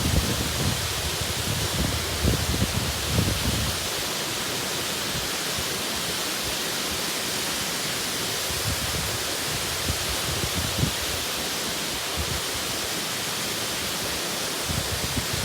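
Sera Ella waterfall: the steady rush of falling water. Low, irregular rumbles come in the first few seconds and again near the end.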